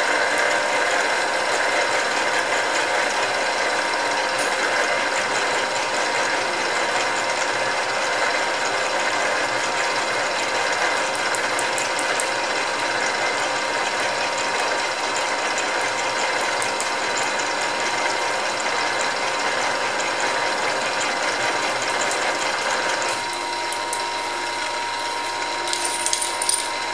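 Milling machine drilling through a steel plate with a twist drill: a steady machine whine under the rough cutting noise of the bit, with chips breaking off and flying. The cutting noise drops off near the end.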